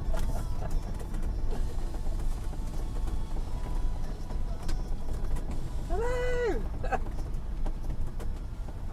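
Steady low rumble of a motorhome on the move, with a short pitched sound about six seconds in that rises, holds and falls.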